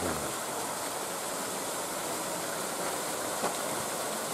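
Steady splashing of a pond fountain, its jets spraying up and falling back into the water.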